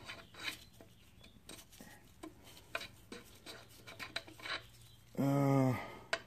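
Light metallic clicks and clinks of small steel screws and pulley-installer tool pieces being handled and tried in the threaded end of a power steering pump shaft. A man's short hummed "mm" comes near the end, louder than the clinks.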